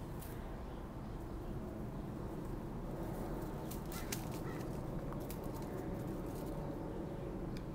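Garden background noise: a steady low rumble, with a few short clicks and faint brief chirps around four seconds in.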